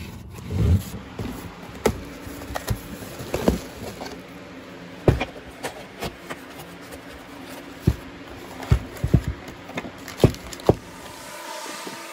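Tools being handled: a dozen or so short, sharp knocks and clanks at irregular intervals as pieces are picked up and set down, over a faint steady hum.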